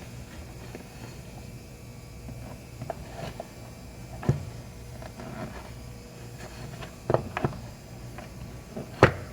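Scattered small clicks and knocks of parts and tools being handled on a workbench during a laptop charger repair, a few separate taps spread over several seconds, over a faint steady low hum.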